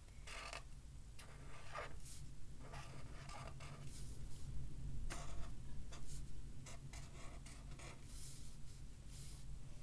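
Felt-tip marker pens writing on poster paper: short scratchy strokes at irregular intervals, over a faint low hum.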